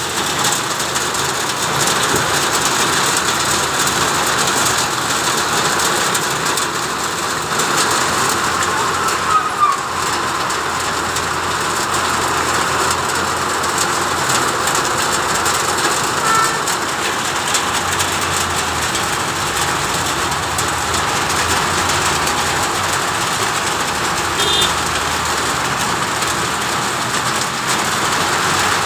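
Heavy rain pouring onto a wet road in a steady hiss, with traffic passing through the water; a tanker truck drives close by about halfway through.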